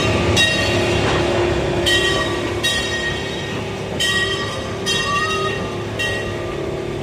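Open-sided amusement park train running, with a steady rumble and brief high-pitched metallic squeals about once a second.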